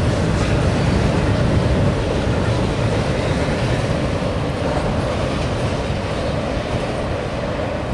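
Double-stack intermodal freight train's container-laden well cars rolling past over a steel girder bridge: the steady running noise of wheels on rail.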